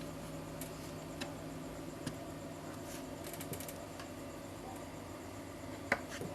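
Scattered small clicks and ticks, the sharpest near the end, over a steady low hum.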